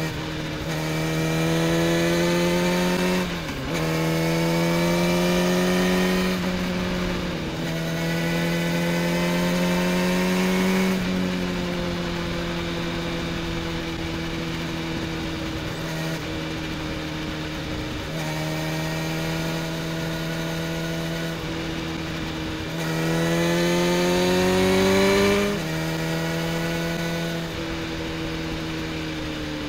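Motorcycle engine heard from on the bike, under way: the revs climb and drop back sharply three times in the first third, hold at a steady cruising note through the middle, then climb once more about three quarters through before dropping back.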